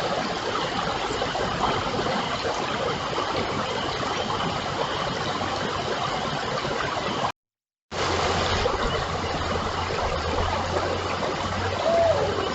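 Steady rush of running water, like a creek, picked up by a trail camera's microphone. It drops to silence for about half a second just past the middle, and after that a low hum runs under it.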